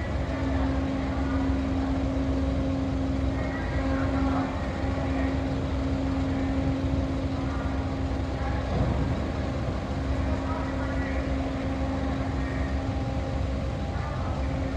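Ferry Akebono's engines running steadily during berthing: a continuous low rumble with a steady droning hum. Faint voices are heard in the background.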